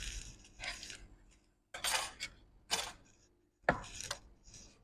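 Small tools and parts being handled on a workbench: about five sharp clicks and clinks with short scrapes, each dying away quickly.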